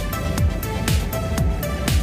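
Electronic background music with a steady kick drum beat, about two beats a second.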